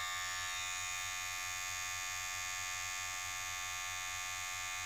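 Ufree U1257 cordless hair clipper's motor and blade running with a steady, even buzz at about 5,400–5,500 RPM.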